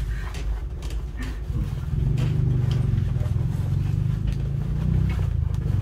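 Electric hair clipper switched on about two seconds in, then running with a steady low buzz.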